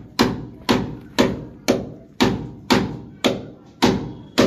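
Hand hammer struck repeatedly at a steady pace, about two blows a second, nine blows in all, each ringing briefly; it is being used against the wall at a white plastic water-pipe fitting.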